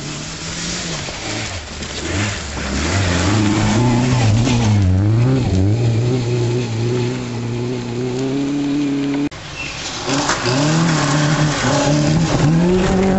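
Rally car engines on a gravel forest stage. One car is heard approaching, its revs dipping and climbing with gear changes and lifts. After a sudden cut about nine seconds in, a second car accelerates hard toward the listener, its revs rising and then holding high.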